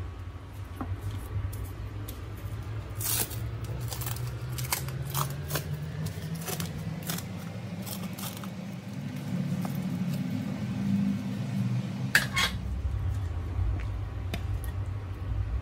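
Plastic cling film crinkling in hands, a string of sharp crackles with a last cluster about twelve seconds in. A low hum runs underneath and stops at about the same point.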